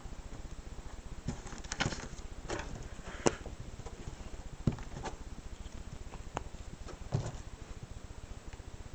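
Scattered taps, knocks and light rustles of hands handling a glue bottle and a paper tube on a tabletop close to the microphone, the sharpest knock a little over three seconds in, over a steady low hum.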